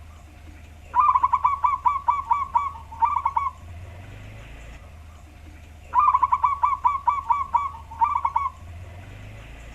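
Zebra dove (perkutut) singing its deep cooing song twice, about five seconds apart. Each song is a quick run of rolling notes followed by a short closing phrase, over a low steady hum.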